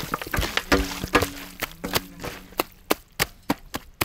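A series of sharp, irregular knocks and clatters, about a dozen over a few seconds.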